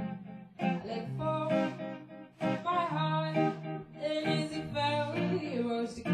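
A live band playing in a studio: guitar chords with a voice singing over them.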